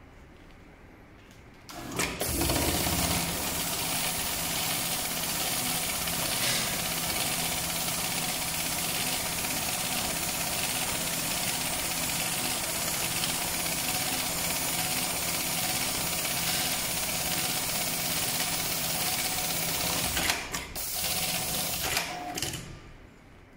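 HighTex MLK500-2516ECO automatic pattern sewing machine stitching through thick harness webbing. It starts with a knock about two seconds in, runs steadily for most of the time, then stops near the end with a few sharp knocks.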